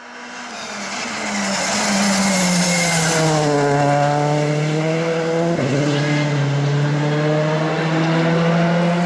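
Rally car engine swelling in, its pitch falling as it slows for a bend, then pulling away at steady revs with a brief gear-change break about five and a half seconds in. A loud hiss accompanies the engine and stops about three seconds in.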